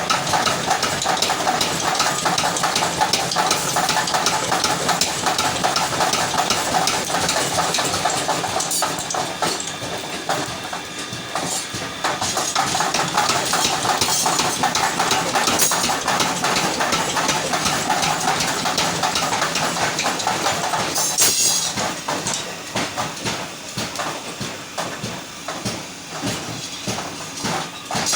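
Forging workshop machinery running: a loud, continuous clatter of rapid small impacts over a hiss, with a brief sharper hiss about three-quarters of the way through.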